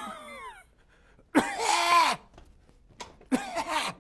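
A man's comic vocal noises, three strained cough-like groans, each falling in pitch. The middle one is the loudest and longest.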